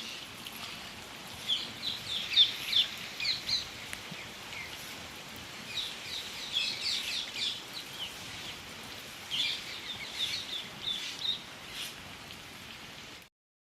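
Small birds chirping in repeated quick bursts over a steady background hiss. The sound cuts off just before the end.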